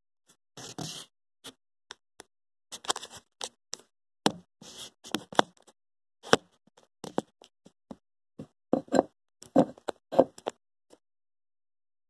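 A series of irregular knocks and clicks with a few short rustling scrapes, the sharpest knocks coming in a cluster a little after the middle. There is no motor hum: the fan is not running.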